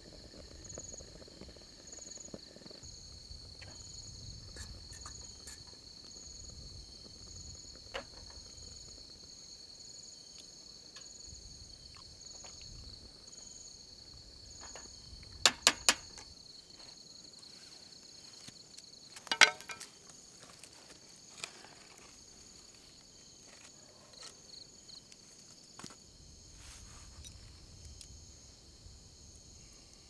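Crickets chirping at night: a steady high trill with a second, higher chirp pulsing about once a second. A few sharp clicks cut through, a quick run of three about halfway and a louder one a few seconds later.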